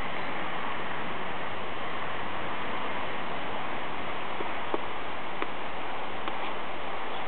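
Steady, even background hiss with a few faint clicks in the second half.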